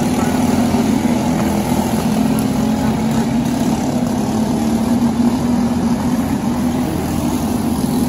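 Racing karts' small engines running together on track, a steady hum with little rise or fall in pitch.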